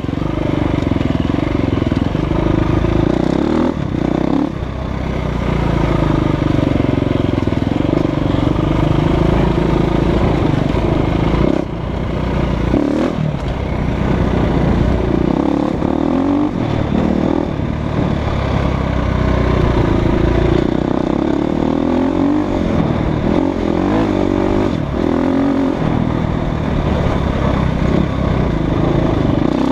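2015 Husqvarna FE350's four-stroke single-cylinder engine running under way on a dirt trail, its pitch repeatedly rising and falling as the throttle is opened and rolled off, with brief drops in level about 4 and 12 seconds in.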